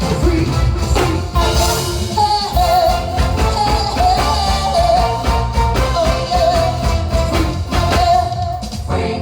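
Live soca music with a pounding beat and heavy bass, and a singer holding a wavering melody line over it, heard through festival PA loudspeakers.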